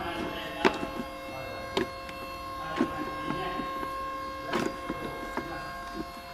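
Hard plastic fuse-box cover in a car's engine bay being handled, knocking and clicking several times, over a steady hum.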